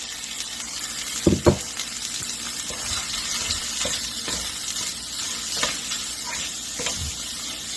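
Chorizo and ground meat sizzling in a frying pan with vegetables while being stirred, the utensil scraping and knocking against the pan, loudest about a second and a half in.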